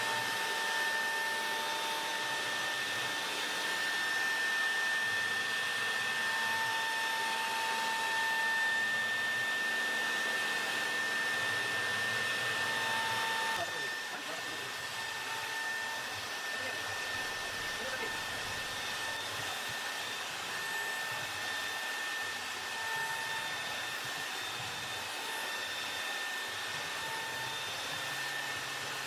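CNC router spindle running as it carves wood: a steady whine with a constant high tone over a cutting hiss, and shorter lower tones coming and going. The level drops a little about halfway through.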